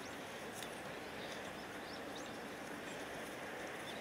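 Quiet outdoor ambience: a steady, even background hiss with a few faint, short high chirps from small birds scattered through it.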